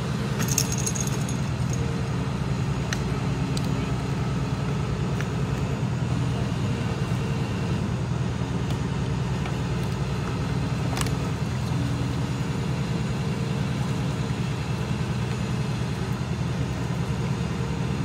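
An engine running steadily at idle, a low even drone. There are a couple of sharp clicks near the start and another about eleven seconds in.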